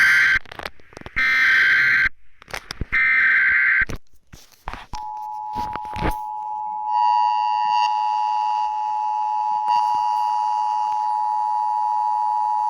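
Emergency Alert System broadcast: the tail of one burst of the SAME digital header's warbling screech, then two more, each about a second long. About five seconds in, the EAS two-tone attention signal starts and holds steady as one harsh, unbroken alert tone, which means a warning message is about to follow.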